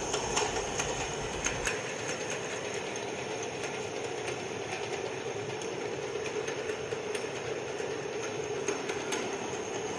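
Automatic can washing and gravity filling line running: steady machine noise with a thin high whine and scattered irregular clicks. A low rumble underneath stops about two seconds in.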